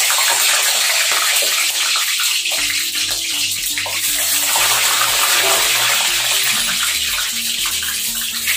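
Boiled, peeled eggs frying in hot refined oil in a kadhai: a loud, steady sizzle of the oil around them.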